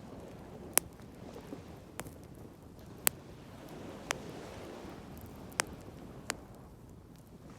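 Wood bonfire crackling, with about six sharp, separate pops roughly a second apart, over a steady low rush of sea surf.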